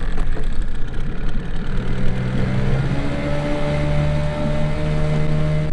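Evinrude outboard motor running with the boat under way, under rushing wind and water noise. A steady engine note comes through about two seconds in.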